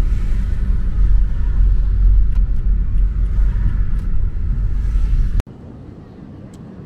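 Steady low road rumble and engine noise inside a camper van's cab while driving. About five seconds in it cuts off abruptly to a much quieter, even outdoor hiss of surf and wind on a beach.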